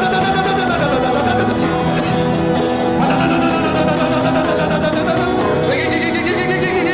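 Worship music with guitar and held chords under voices singing and praying aloud, a congregation praying in tongues together.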